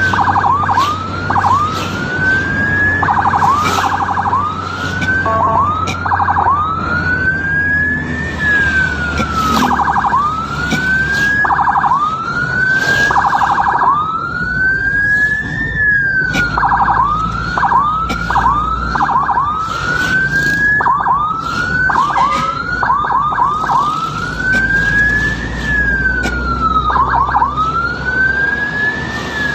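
Ambulance's electronic siren sounding on the move, alternating long wails that rise and then drop with runs of rapid yelps, over the low rumble of the vehicle on the road.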